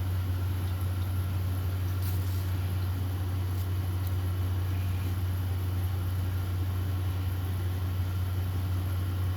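Steady low mechanical hum with no change in level, with a few faint clicks around two and four seconds in.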